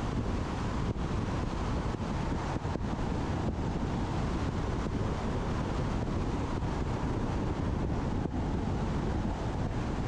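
Steady wind buffeting on a roof-mounted action camera's microphone, over the low rush of a Tesla Model X's tyres on asphalt at road speed.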